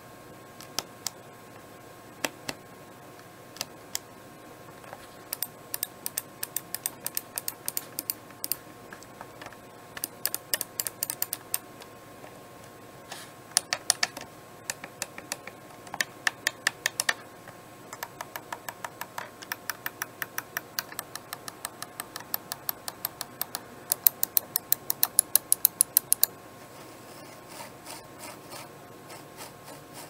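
Elecom HUGE trackball mouse clicking and ticking: a few single button clicks, then runs of quick, even ticks from the notched scroll wheel being turned. Near the end there is a softer rubbing and ticking as the trackball is rolled.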